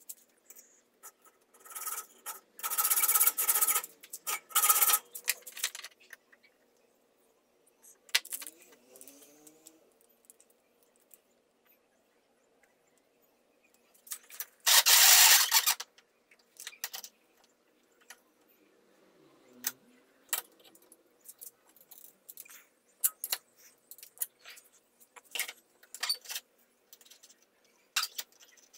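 Metal parts and hand tools being handled on a workbench: scattered clinks and knocks, with a scraping sound about two to five seconds in and a louder, short scrape about fifteen seconds in.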